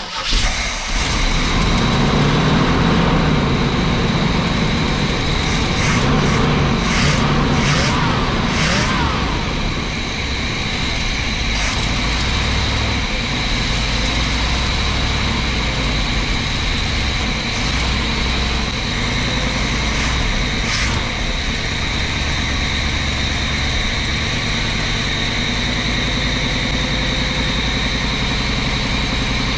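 Carbureted motorhome V8 starting on the choke after sitting, heard from the cab with the engine cover off. It catches right at the start and runs fast and unsteadily for several seconds, then settles into a steady fast idle as it warms up.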